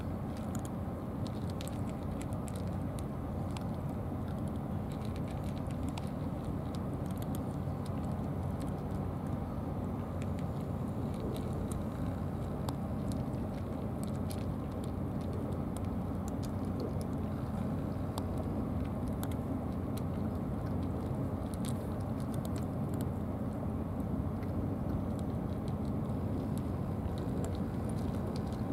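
Steady low outdoor rumble with faint, scattered clicks from cats eating out of plastic food trays.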